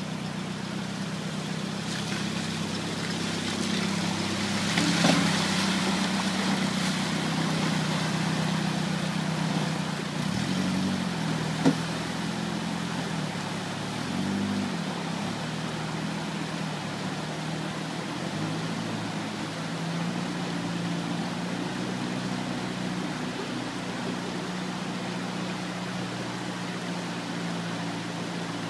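Isuzu Trooper's engine running as the 4x4 wades through a fast-flowing river, over the rush of the water. The engine pitch rises and falls about ten to fifteen seconds in. There is a louder stretch about five seconds in and a single sharp knock near twelve seconds.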